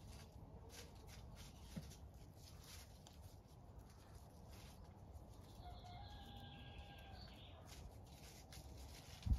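A rooster crows once, faintly, about halfway through: a single held call of roughly a second and a half. Near the end there is one short, louder thump.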